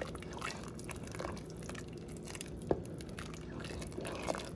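A spoon stirring thick soup in a pot: irregular soft scrapes, wet squishes and small clicks, with one sharper knock against the pot about two-thirds of the way through.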